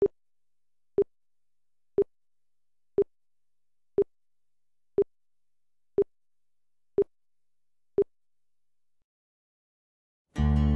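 Broadcast countdown-leader beeps: nine short, identical beeps exactly one second apart, then a brief silence before music begins near the end.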